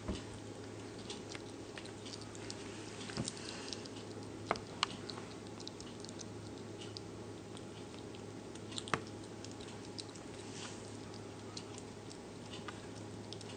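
Slow loris eating a chunk of food held in its hands: small wet clicks and smacks of biting and chewing, scattered at irregular intervals over a steady low hum.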